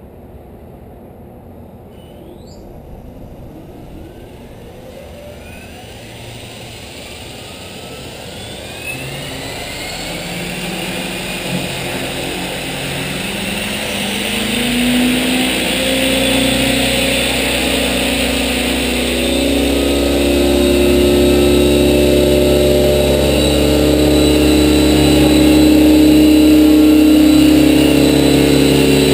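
Align T-Rex 600E Pro electric RC helicopter spooling up: a faint rising whine from its brushless motor and drive gears climbs for about fourteen seconds, then settles into a steady rotor hum that keeps getting louder as the head comes up to speed.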